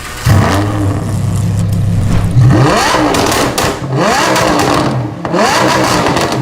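Engine of a modified 280 hp Maruti Baleno holding a steady note, then revved in three quick blips, each a sharp rise in pitch, about a second and a half apart.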